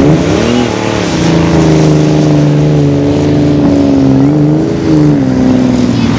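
Car engine running and revving, its pitch rising shortly after the start, holding steady, then rising and falling again about four to five seconds in.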